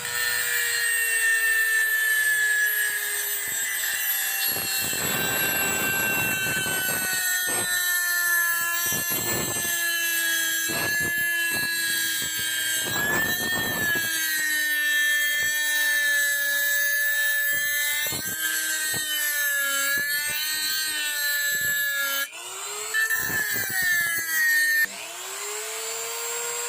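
INGCO mini rotary grinder running with a steady whine that sags in pitch as the bit is pressed against metal, with several stretches of rough grinding noise. About 22 s in it stops, then spins back up near the end.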